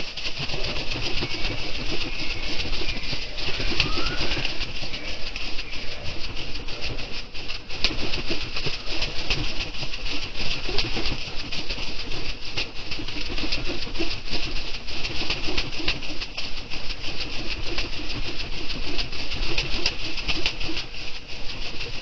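Spotted dove cooing repeatedly, with flurries of wing flaps, over a steady high hiss.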